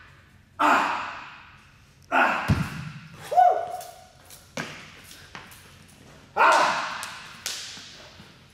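A man exercising, with loud forceful breaths that fade out in the echo of a large weight room. There is a deep thud about two and a half seconds in, as of dropping from a pull-up bar to the floor, a short vocal grunt right after, and a few light taps.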